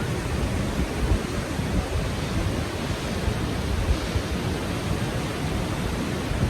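Grawa waterfall rushing: a steady, even roar of falling water.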